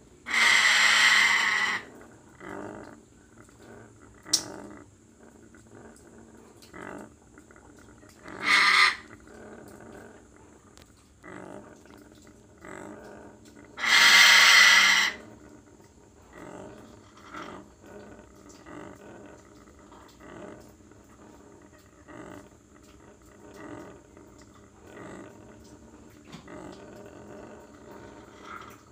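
Congo African grey parrot giving three loud, harsh growls: a long one at the start, a short one about 9 seconds in and another about 14 seconds in. Between them come quieter short grumbles every second or so.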